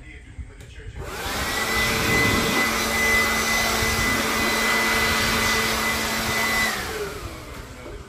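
Handheld leaf blower starting up about a second in, running steadily with a rush of air and a high whine while blowing metal drilling shavings away, then switched off near the end and winding down with a falling pitch.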